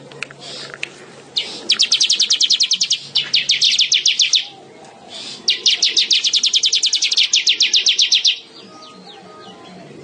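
A weaver bird (manyar) singing: two bouts of fast chattering trill, each about three seconds long, with a short pause between them.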